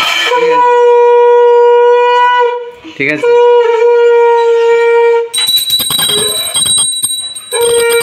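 Conch shell (shankha) blown for a puja aarti in long steady blasts, two of about two seconds each, with a third starting near the end. Between the second and third blasts a small hand bell rings rapidly, and it keeps ringing under the last blast.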